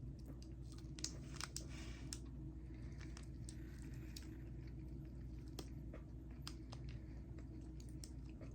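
Low steady room hum with scattered faint clicks and soft rustles: quiet handling and eating of a soft candy.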